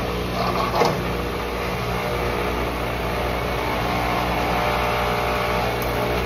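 On-vehicle wheel spinner's electric motor driving a truck front wheel at speed, a steady whirring hum with a light click about a second in. The wheel is being spun to check it for imbalance and shake.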